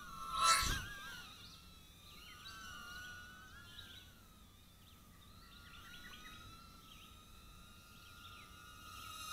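High, wavering whine of a mini quadcopter's tiny motors and propellers, its pitch bending up and down as it flies. A brief rush of noise comes about half a second in.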